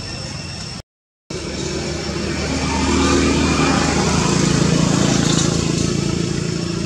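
A motor vehicle's engine passing by, its hum swelling to a peak about halfway through and then fading. The sound cuts out completely for a moment about a second in.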